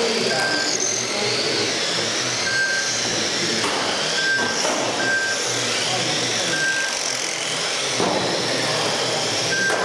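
Electric RC touring cars racing on a carpet track, their motors whining in high pitches that rise and fall as the cars speed up and brake. A short beep from the lap-timing system sounds about six times, irregularly spaced, as cars cross the timing line.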